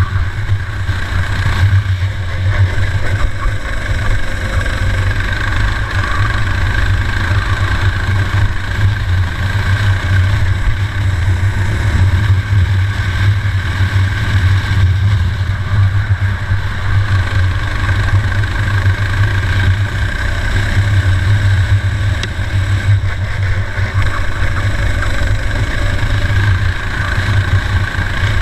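Racing kart's engine running hard at race speed, heard from on board the kart, a loud continuous engine note with no breaks.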